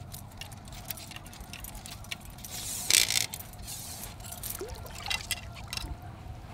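Shallow marsh water sloshing and trickling around waders while a steel body-grip trap and its chain are handled, with light chain clinks. There is a louder rush of water about three seconds in.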